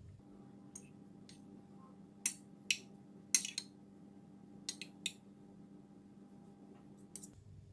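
Metal spoon and fork clinking against a ceramic plate while stirring fried rice: scattered light clinks, a few at a time, over a faint steady hum.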